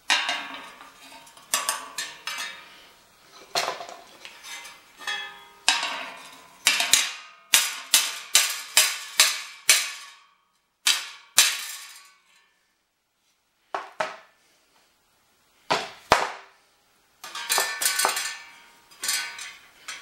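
Hammer blows and metal clanking on the thin sheet-metal blades of a windmill wheel, in irregular clusters. In the middle comes a quick run of about ten ringing blows, two or three a second, then a few scattered knocks after a pause.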